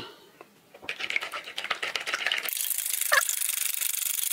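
Wire hand whisk beating eggs in a plastic bowl: rapid clicking and scraping that starts about a second in and grows louder and busier about halfway through.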